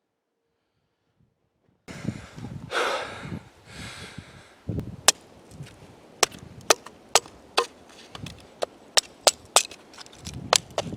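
Wood being chopped: after a brief rustle, a run of sharp strikes, about two a second.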